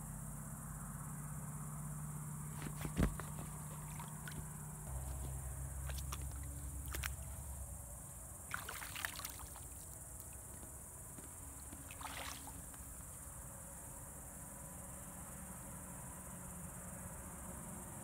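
Crickets chirping steadily, with a sharp click about three seconds in. Brief splashing and trickling of water follows a little before halfway and again later, as a hand moves a flashlight in the pool water.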